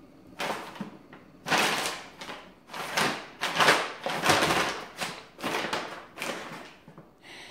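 Brown paper bag crinkling and rustling in a run of loud bursts, starting about half a second in, as a cat pounces into it and shoves it over the tile floor.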